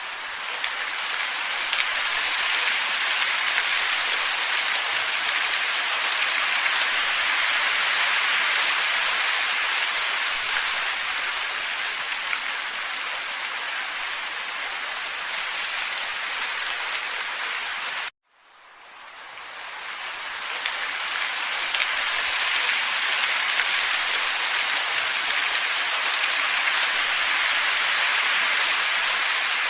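Steady, even hissing noise from a looped nature-ambience track sold as calm wind. About eighteen seconds in it cuts out suddenly, then fades back up over a couple of seconds as the loop restarts.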